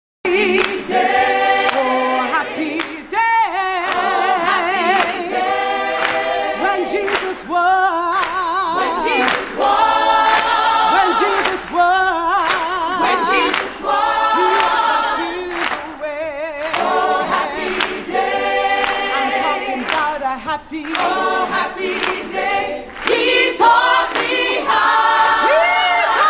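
Gospel choir singing a slow song, its voices holding long notes with wide vibrato.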